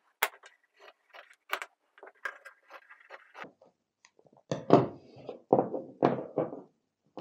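Scissors snipping through a soft cloth in short cuts, then several knocks as small wooden blocks are set down and shuffled on a wooden tabletop during the second half.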